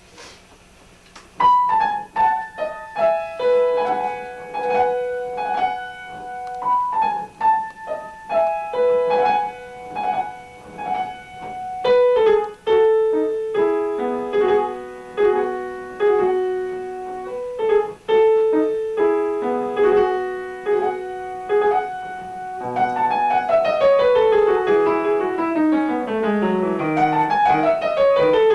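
Piano playing a slow melody of single notes and chords, starting about a second and a half in, with a falling run of notes near the end.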